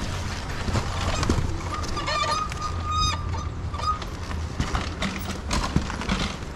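Talaria electric dirt bike rolling down a rocky trail: a steady low rumble with scattered knocks and rattles as the tyres and suspension hit rocks and roots. About two seconds in, a high squeal sounds for about a second.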